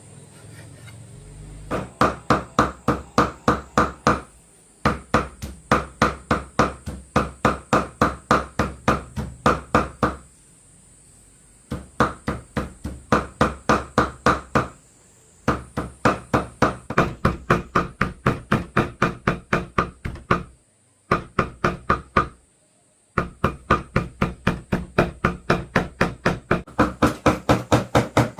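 Cleaver chopping fast on a wooden board, about five even strikes a second, in runs of a few seconds with short pauses between, like meat being chopped or minced.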